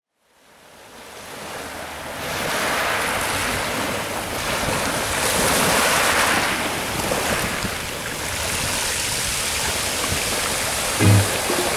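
Ocean surf washing and surging, fading in from silence and swelling twice. A deep bass thump comes in near the end as a music beat starts.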